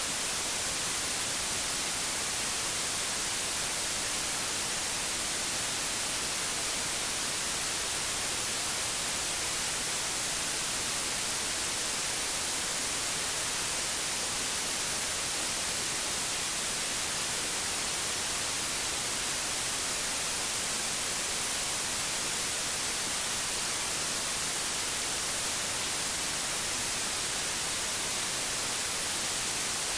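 Steady synthetic white noise, an even hiss strongest in the high frequencies, with no change in level.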